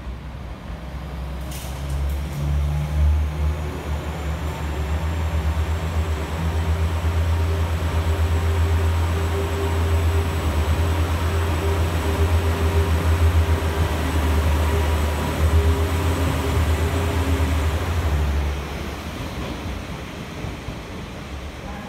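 Red JR diesel railcar rumbling as it moves along the platform. Its engine sound builds up about two seconds in, holds steady, and drops away near the end, with a faint high whine over it.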